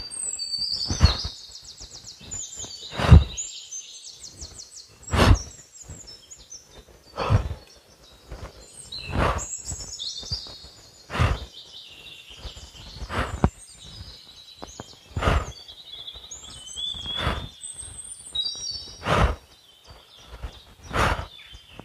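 A man breathing out in short, strong breaths about once every two seconds during qigong exercise, with birds chirping and trilling.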